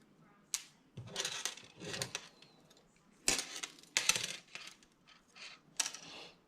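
Small hard fishing-rig parts (swivels, beads, weight clip) clicking and clinking against each other and a tabletop as the finished rig is handled, with scratchy rustling between several sharp clicks.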